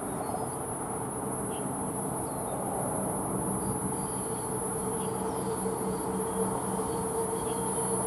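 Light twin-engine propeller plane flying overhead: the steady droning hum of its engines and propellers.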